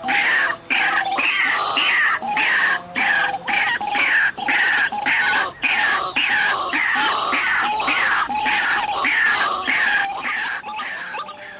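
White-breasted waterhens calling: a loud, unbroken run of short falling notes, about two a second, easing off slightly near the end.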